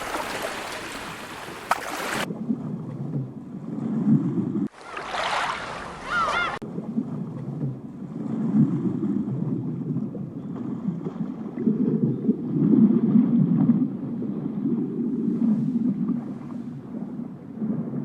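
Spliced ambient sound effects that change abruptly. About two seconds of loud rushing noise, then a low rumble. A second rushing passage with a few high whistling glides comes around five seconds in, followed by an uneven low rumble for the rest.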